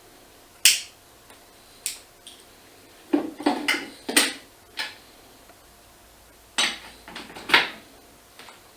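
Sharp clicks and knocks of small hard objects being handled, in irregular groups: single ones about a second and two seconds in, a quick cluster around three to four seconds, and a few more near seven seconds.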